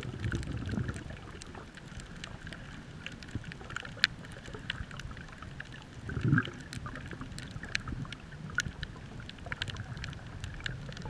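Underwater sound picked up through a camera housing: a low rumble of surge from waves breaking overhead, swelling near the start and again about six seconds in, with many scattered sharp clicks and crackles throughout.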